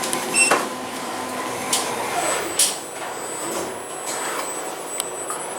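Schindler 5500 traction elevator on the move: a steady whine from the drive that drops in pitch about two seconds in as the car slows, with a few clicks and knocks from the car.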